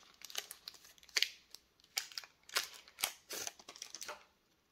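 Foil wrapper of a Pokémon booster pack crinkling in a string of short rustles as the cards are pulled out of it, stopping shortly before the end.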